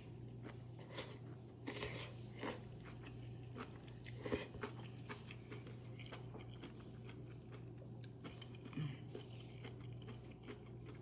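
Close-miked chewing and biting of food, with scattered small crunches and clicks, the sharpest about four seconds in, over a steady low hum.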